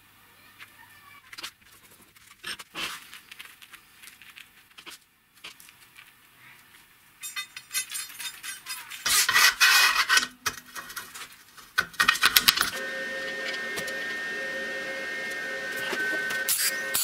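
Small steel parts clinking and clicking as they are handled and fitted together, with a loud rasping burst of metal noise about nine seconds in and a few sharp clinks near twelve seconds. Background music with steady held tones starts about thirteen seconds in.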